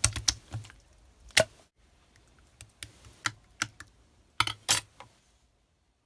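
Clear slime being squished and pressed by hand, making irregular sticky clicks and pops. The loudest come about one and a half seconds in and again near the end, and the sound stops abruptly about five and a half seconds in.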